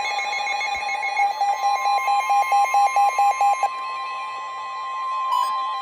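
Weather radio warning alarm tone: a loud, steady single tone near 1 kHz, the signal that a new warning message follows. Over it, a receiver's alert beeps pulse rapidly, about six a second, and stop about two-thirds of the way through.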